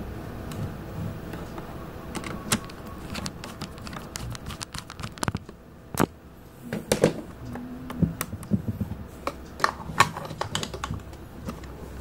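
Irregular small clicks and knocks of a Jumper T18 Pro radio transmitter's plastic case and switches being handled and turned over by hand.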